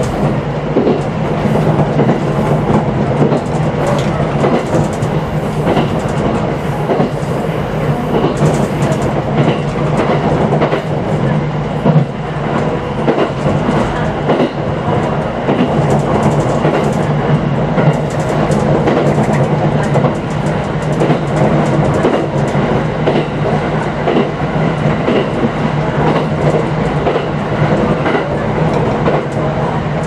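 JR 701 series electric train running along the line, heard from inside the rear cab: a steady low hum and running noise with the wheels clicking over the rail joints.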